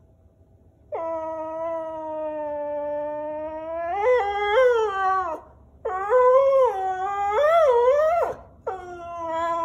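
Whippet howling in long drawn-out 'roos', a protest at the camera: the first call starts about a second in and holds steady before wavering, a second wavering call follows at once, and a third begins near the end.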